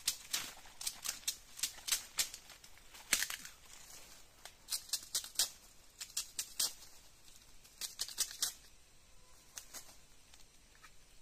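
A knife cutting into a freshly gathered bamboo shoot: a run of crisp, irregular snicks and cracks, often in quick clusters, thinning out near the end.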